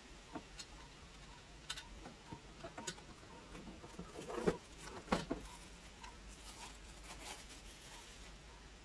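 Handling noises: scattered light clicks and taps of plastic parts being handled, with two louder knocks about four and a half and five seconds in.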